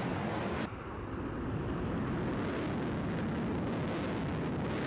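Military jet engine noise overhead, a steady rushing roar. Less than a second in, the sound changes abruptly and turns duller, then gradually brightens again.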